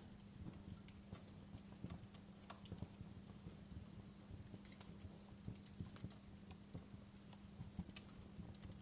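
Wood fire crackling in a fireplace: quiet, irregular small pops and snaps over a faint, steady low hum.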